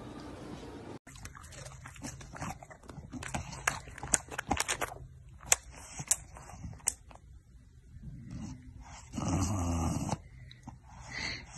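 English bulldog snorting and breathing noisily, with scattered sharp clicks in the middle and a louder snort lasting about a second, about nine seconds in.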